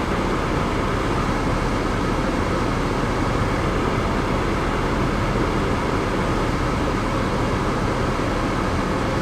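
Steady rushing noise of the 2005 Toyota Highlander's climate-control blower running inside the cabin.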